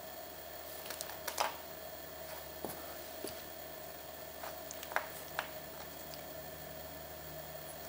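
Scattered light clicks and taps of wooden lace bobbins knocking together as they are handled during bobbin-lace work, about eight in all and the sharpest about 1.5 and 5 seconds in, over a faint steady hum.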